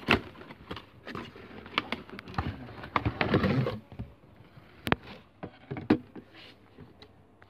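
Cardboard toy box being handled and turned close to the microphone: scattered knocks and clicks with rustling, busiest about three seconds in.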